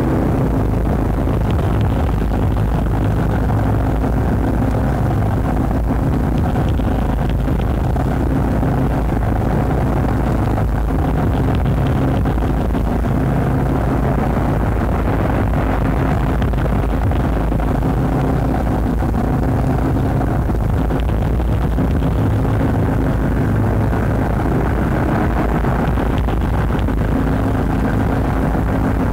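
Industrial noise music: a dense, unbroken wall of droning noise over a low rumble, with a held low tone that fades in and out every several seconds.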